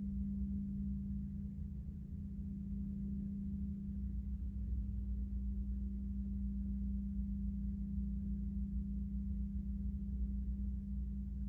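Gong giving a deep, steady hum: one sustained low drone with no separate strikes.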